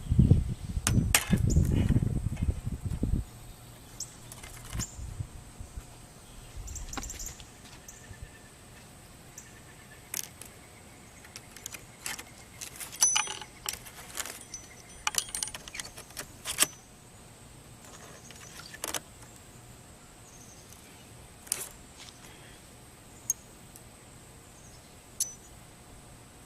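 Scattered light clicks and clinks of hands working with hardware, after about three seconds of loud rumbling handling noise at the start.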